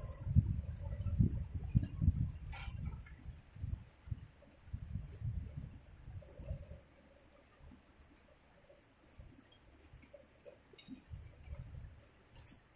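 An insect shrilling steadily as one high, unbroken tone. Low rumbles on the microphone in the first few seconds die away after about four seconds.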